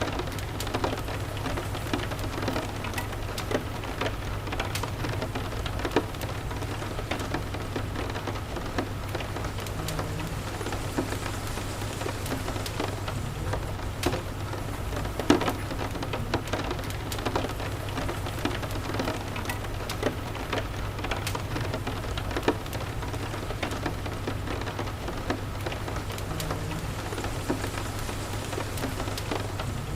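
Steady rain with a wood fire crackling, sharp pops scattered irregularly through it, over a steady low rumble.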